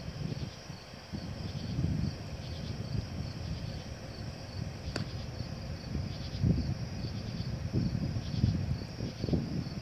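Crickets and other night insects chirping steadily, over an uneven low rumble that swells several times, with one sharp click about halfway through.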